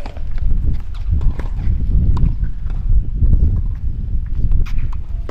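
Sharp, irregular knocks of tennis balls being struck and bouncing during play, over a heavy low rumble.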